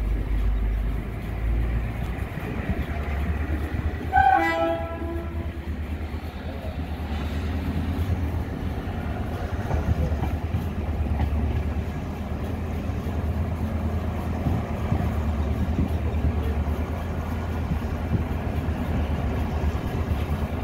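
Passenger train running, heard from a coach window: a steady low rumble of wheels on the rails. A short locomotive horn blast sounds about four seconds in.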